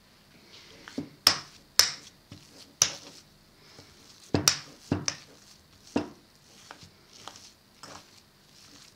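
Metal spoon stirring thick cake batter in a bowl, knocking sharply against the bowl's side about half a dozen times, with softer scrapes and taps between.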